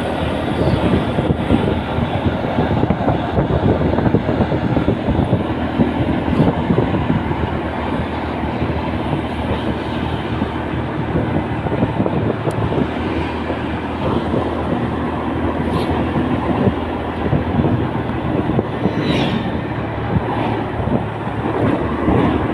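Steady rumble of engine and road noise from vehicles on the move, loud and even throughout.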